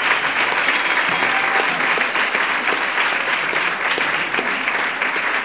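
A roomful of people applauding: steady, dense clapping that eases slightly near the end.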